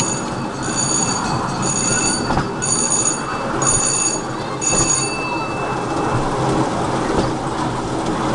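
Bell ringing about seven times, roughly once a second, stopping about five seconds in, over the steady rumble of a small ride-on train rolling along its track.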